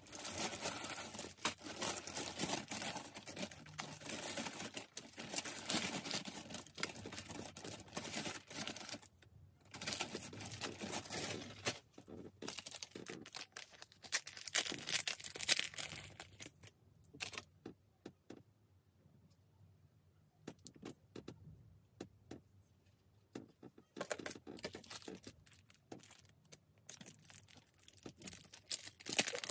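Clear plastic packaging bags crinkling and rustling as small items are handled and unwrapped, in several long bouts, with a quieter stretch of scattered light taps and clicks past the middle.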